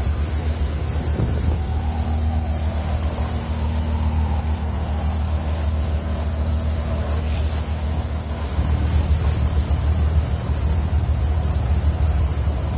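Boat engine running steadily with a low drone, and the water and air noise of the moving boat; it gets a little louder about eight seconds in.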